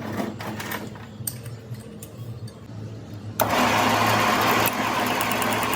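A few light metallic clicks and knocks, then about three and a half seconds in a motorised workshop tool starts suddenly and runs loudly and steadily.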